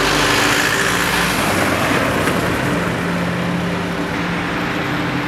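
A car driving along a paved street, with steady road noise.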